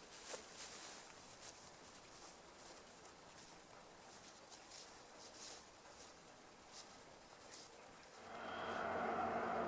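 A cricket chirping in a fast, even trill of high-pitched pulses, breaking off briefly about a second in and stopping near the end as guitar music fades in.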